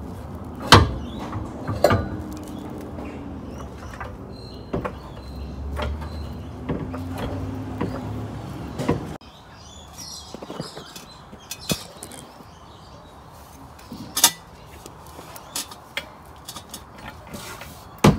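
Scattered metallic clunks and clicks of hand tools and parts on the differential housing and its mounting, with the loudest knocks about a second in and near the end. A steady low hum runs under the first half and drops away at a cut.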